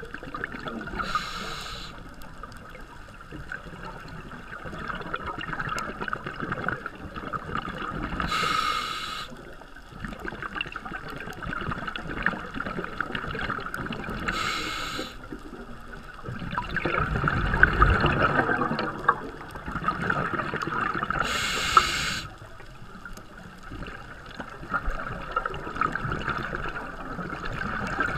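Scuba regulator breathing heard underwater: a short hissing inhalation about every six to seven seconds, four times, with bubbling exhalations between. The loudest is a long low bubbling exhalation about two-thirds of the way through.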